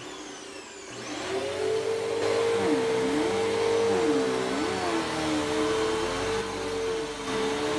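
Bissell PowerForce Helix Turbo upright vacuum cleaner running on carpet, getting louder about a second in. A steady motor hum runs alongside a second tone that dips and rises again every second or so.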